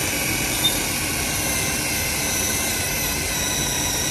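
Cordless drill running steadily, its bit cutting a hole into a car's plastic bumper, with a steady high whine from the drill.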